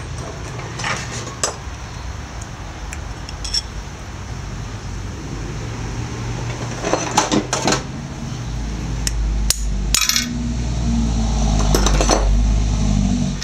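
Steel transmission parts clinking and tapping against each other and the cast-iron case as the high/low shift fork and detent tube are worked loose with a metal rod: scattered sharp metallic clicks, busiest in the second half. A low steady hum comes in about two-thirds of the way through.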